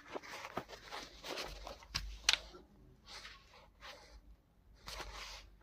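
Irregular scraping and rustling with a few sharp clicks and knocks, from handling SWR PVC drainage pipe and fittings.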